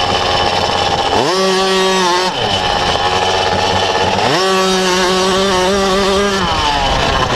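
50cc motocross bike engine revving hard twice: the pitch climbs quickly about a second in, holds high for about a second and drops, then climbs again about four seconds in and holds for about two seconds before falling back.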